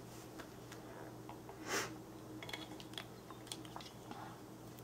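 Cardstock handled and trimmed at a paper punch: a short rustle of paper about two seconds in, then light clicks and snips of small craft scissors.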